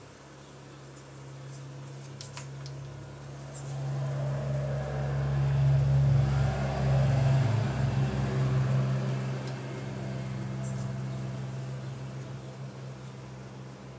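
Steady hum of a honeybee colony over an open hive. A louder noise swells up partway through and fades away over several seconds, a few faint clicks sitting on top.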